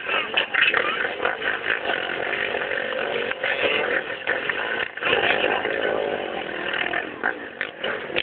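Engines of several motocross bikes running together, their pitch wavering up and down as they are revved.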